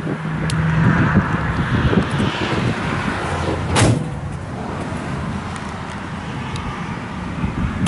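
Wind buffeting the microphone with a low rumble, and one sharp knock about four seconds in.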